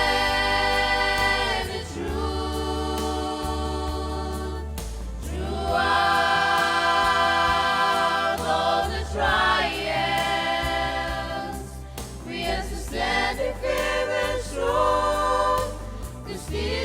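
Youth choir singing a gospel song in harmony. Long held chords change every two or three seconds, then give way to shorter, more rhythmic sung phrases about twelve seconds in.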